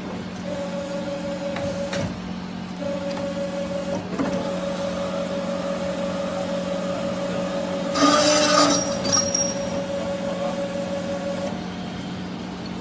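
CNC tube bending and sawing machine running with a steady motor hum, broken by a few knocks as its clamps and bending head move. About eight seconds in comes a loud burst of noise lasting under a second.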